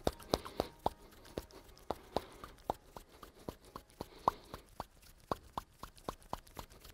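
A quick, uneven series of small sharp clicks, about three a second, made while the hands circle at the wrists with the fingers interlaced.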